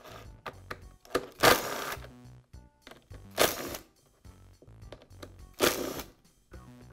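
Cordless screwdriver running in three short bursts of about half a second each, driving out the screws that hold the plastic pump housing halves together.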